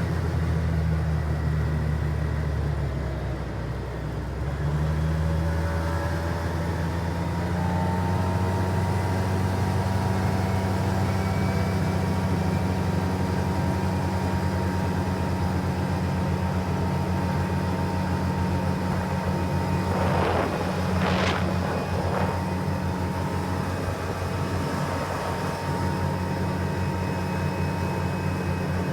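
2005 Polaris Ranger XP 700's twin-cylinder engine running steadily in gear on fresh gas, its speed dipping and then picking up again a few seconds in. It runs smoothly, without stumbling.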